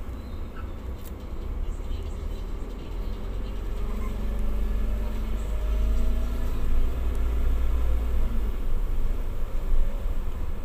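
Vehicle engine pulling away and gathering speed, its pitch rising gently from about three seconds in, over a steady low rumble.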